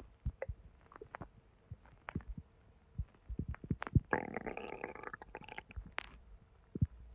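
Digestive gurgling from a belly recorded close up, stirred by hot sweetened tea during constipation: scattered short pops and clicks, then a longer bubbling gurgle about four seconds in that lasts nearly two seconds and is the loudest sound.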